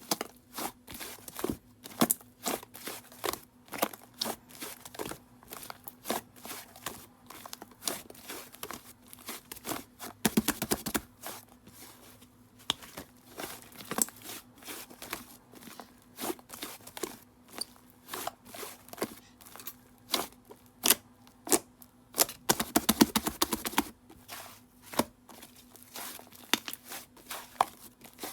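White fluffy clay slime being squished and stretched by hand, giving irregular sharp pops and crackles, with two denser runs of crackling, about ten seconds in and again a little past the two-thirds mark.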